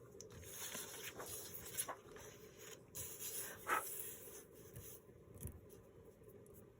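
Paper sheets faintly rustling and sliding as they are handled, in two stretches with a few light taps, then quieter near the end.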